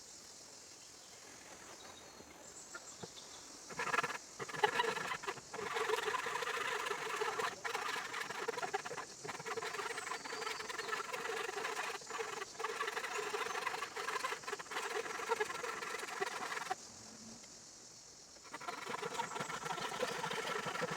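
Wood being worked by a carving or sanding tool: a squeaky, scratchy sound with a steady pitch and a few sharp ticks, running for about thirteen seconds, stopping briefly, then starting again near the end.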